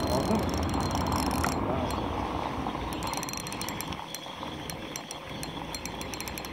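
Shimano Exage 1000 FD spinning reel being cranked, its gears ticking quickly and unevenly while a hooked horse mackerel is reeled in.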